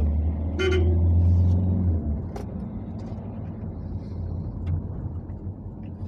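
Ford Connect van's turbo-diesel engine pulling hard under throttle for about two seconds, then easing off. After that comes steady tyre and road noise on wet asphalt.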